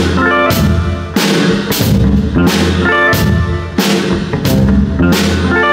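Live rock band playing an instrumental passage: a drum kit hitting hard and regularly, about once every two-thirds of a second, over bass and electric guitar.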